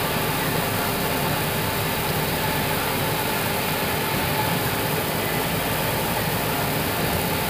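Steady hiss and hum inside an Airbus A320 cockpit, with engine number 2 running after its start.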